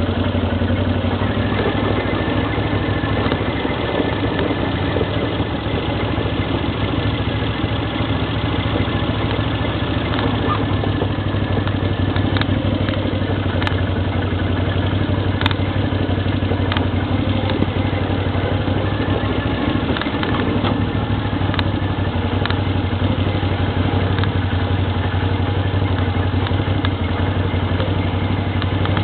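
ATV engine running steadily, with a few sharp clicks in the middle.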